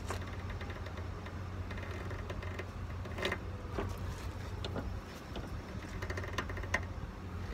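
Hand ratchet clicking in short runs, with a few sharp metal clinks, as a nut is worked on a car's front suspension, over a steady low rumble.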